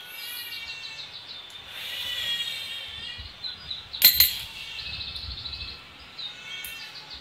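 A coin drops from a remote-vibrating trick pen inside a glass, giving a sharp metallic clink with a quick second tap about four seconds in. Around it, a bird chirps over and over in quick high runs.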